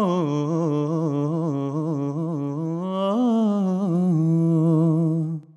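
A man singing alone, a wordless, ornamented melody on an open vowel that closes a Tamil song. It settles on a long, low held note and stops abruptly near the end.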